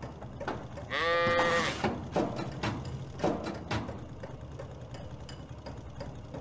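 A ram bleats once, about a second in, in a single call of under a second, over a faint low background hum with a few small knocks.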